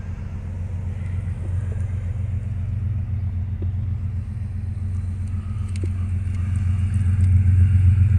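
Diesel freight locomotives pulling a loaded grain train, their engines a steady low rumble that grows louder as the train approaches.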